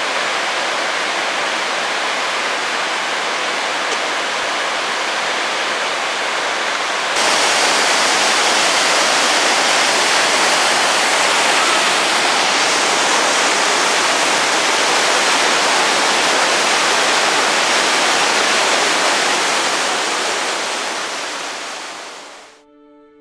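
Steady rush of a waterfall, stepping up louder about seven seconds in and fading out over the last few seconds.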